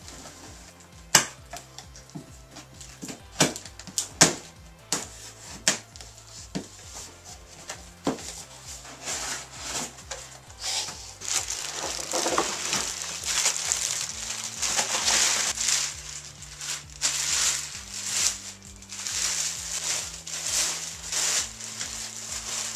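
Cardboard box and plastic packaging being opened by hand: sharp knocks and tearing of tape and cardboard over the first several seconds, then long stretches of plastic wrapping crinkling and rustling as parts are pulled out.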